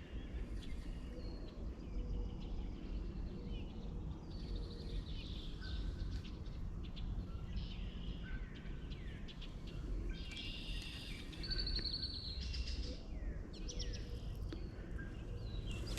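Several songbirds chirping and calling outdoors, with short repeated notes and a rapid trill about two-thirds of the way through, over a steady low rumble.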